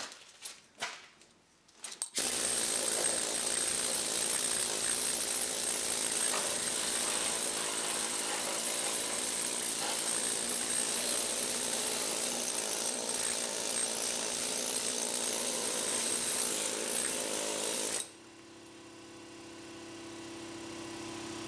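Power tool cutting or grinding sheet metal, running steadily for about sixteen seconds before stopping suddenly, followed by a quieter steady hum.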